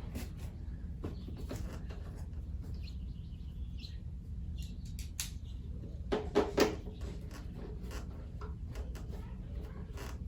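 Scattered clicks and taps of hand tools on motorcycle screws and bodywork as they are tightened back up, with a short cluster of sharper, louder clicks about six seconds in, over a steady low hum.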